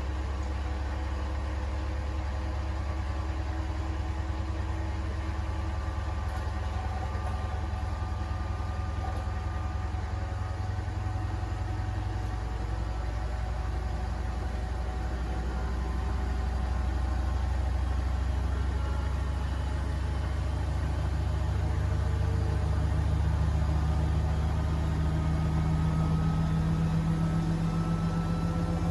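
Beko WTK104121A washing machine drum spinning up: a steady motor hum and whine that slowly climbs in pitch as the drum gains speed, growing a little louder past halfway.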